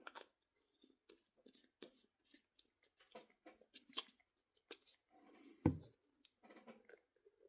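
Faint scattered clicks, taps and light scrapes of small plastic parts being handled, an RC shock body and an opened bottle of shock oil, with one louder knock about two-thirds of the way through.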